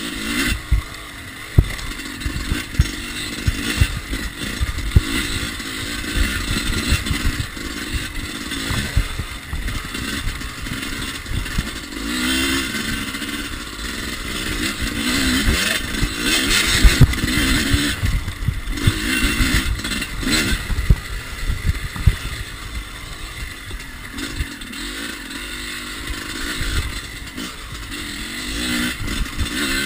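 Yamaha YZ250 two-stroke dirt bike engine, heard from on the bike while riding, revving up and dropping back again and again as the throttle is worked. Frequent short knocks and clatter from the bike over rough ground run through it.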